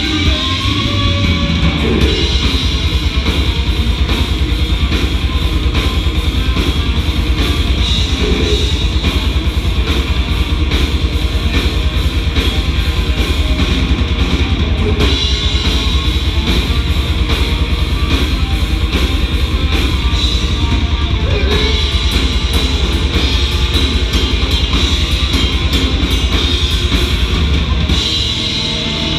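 Heavy metal band playing live: electric guitar, bass guitar and drum kit in a loud, fast instrumental passage with no singing.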